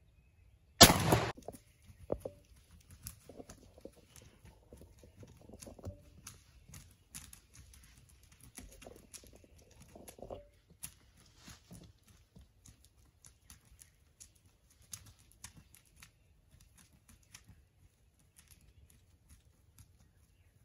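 A single gunshot about a second in, then scattered knocks and rustles in dry leaf litter as turkeys scramble after the shot.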